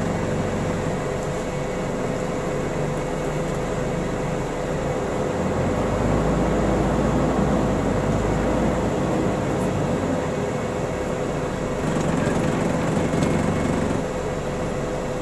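Scania East Lancs OmniDekka double-decker bus running, heard inside the lower deck: steady engine and road noise with a thin steady whine. The low engine rumble grows stronger for a few seconds midway.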